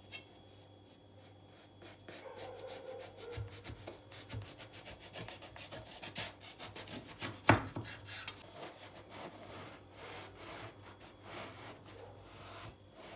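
Large kitchen knife sawing through a loaf of day-old bread, the crust crunching and rasping with each back-and-forth stroke, starting about two seconds in. A single sharp knock comes about halfway through.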